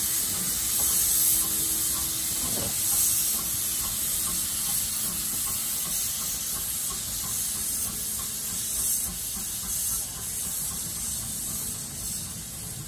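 Steady hiss of steam from a standing Baldwin 10-12-D narrow gauge steam locomotive, with a low steady tone that fades out about halfway through.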